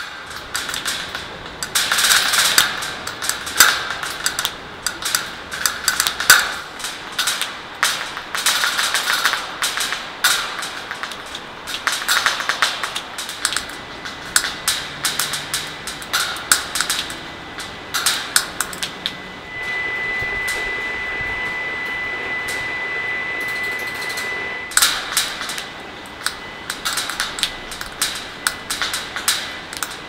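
Robotic woodpecker's striker tapping on a metal railing in rapid, irregular bursts of knocks, its rhythm driven by nearby wireless and phone signals. A steady high tone is held for about five seconds midway.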